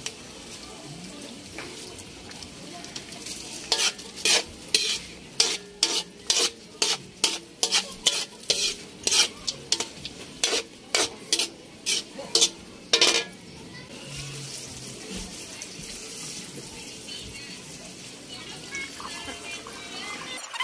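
Metal spatula scraping and knocking against an aluminium wok as chicken and ginger stir-fry with a steady sizzle. From about four seconds in, the spatula strokes come about two a second, then stop a little past halfway, leaving a smoother steady hiss.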